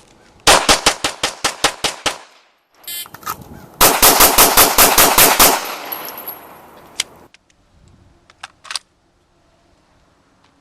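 Handgun fired in two fast strings of about ten shots each, the second starting a couple of seconds after the first, with the echo ringing out after the last shot. A few faint clicks follow.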